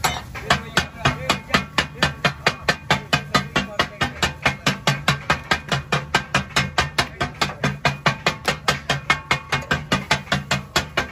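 Metal spatulas striking a large tawa griddle in a fast, even clatter, about five strikes a second, as fresh fish is chopped and fried katakat-style. A low steady hum runs underneath.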